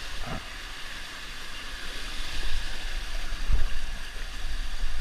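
Steady rush of running water, with deep low rumbles that are loudest about three and a half seconds in.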